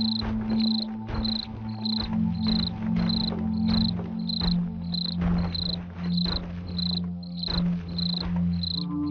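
Eerie horror ambience: crickets chirping steadily, about two chirps a second, over a low droning tone. The drone drops in pitch about two seconds in and changes again near the end.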